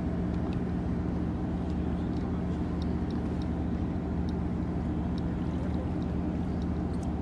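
Boat engine idling steadily, a low even hum, with faint scattered ticks over it.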